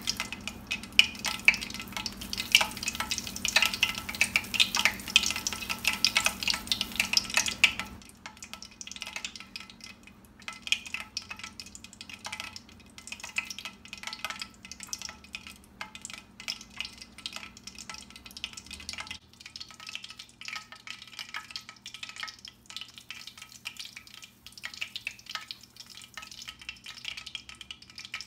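Wet, crackling squelches of oiled hands pressing and rolling minced chicken breast around a boiled egg. The squelching is dense for the first eight seconds or so, then drops suddenly to softer, sparser squishes.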